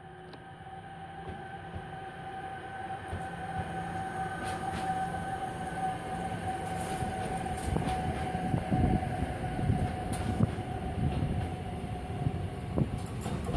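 SBB Cargo International electric locomotive approaching and passing with a steady whine, followed by freight wagons carrying tank containers rolling by. The wheel rumble grows steadily louder, with irregular clacks of wheels on the track in the second half.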